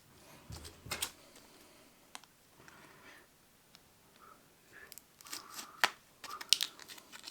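Multi-tool knife blade cutting open plastic packaging: scattered sharp clicks and crinkling, tearing plastic, getting busier in the last couple of seconds.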